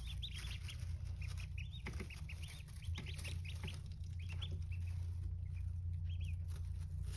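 Newly hatched ducklings peeping: many short, high chirps in quick runs, over a steady low hum.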